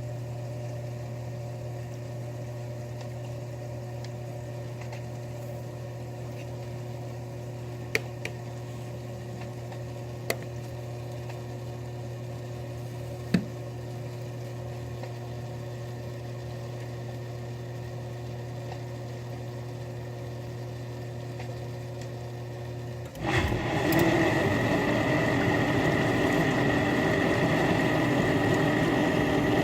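Miele Diamante dishwasher with its front panels removed humming steadily, with a few faint clicks. About 23 seconds in, the water circulation starts with a sudden jump in loudness: water sloshing inside along with a loud grinding-type noise from the bottom of the machine, which the owner suspects is a failing circulation pump or motor.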